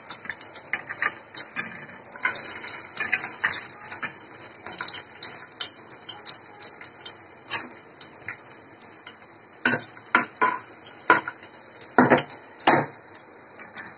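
Finely chopped garlic frying in hot refined oil in a kadhai, a steady sizzle full of small crackles and spits. Several louder sharp cracks come in the last few seconds.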